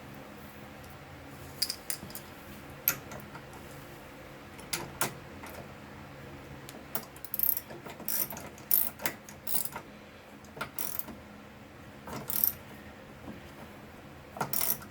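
Hand ratchet with a 5/16 socket clicking in short, uneven runs as a fastener is turned out, with the odd clink of the tool.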